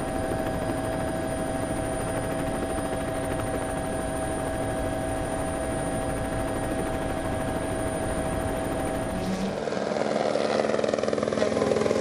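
Steady drone of a helicopter, with a whine that holds a constant pitch. About nine seconds in it gives way to a rally car's engine, growing louder as the car approaches.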